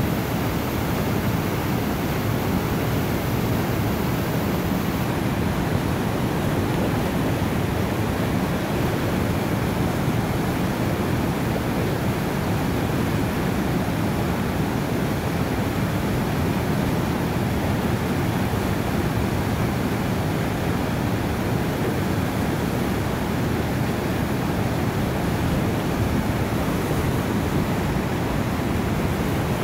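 Steady rush of river rapids, water pouring over and around boulders.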